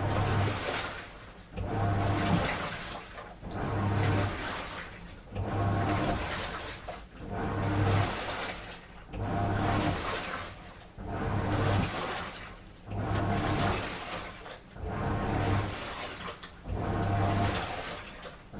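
Washing machine on a strong wash cycle: the drum turns in regular surges about every two seconds, each with a low motor hum and water and laundry sloshing, with brief lulls between turns.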